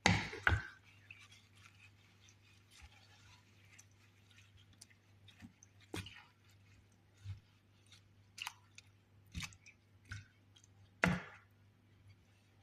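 Spoon stirring apple, lemon, ginger, cloves and mint in a saucepan of water: irregular knocks, clinks and scrapes against the pan. A couple of sharp knocks come right at the start and a loud one near the end.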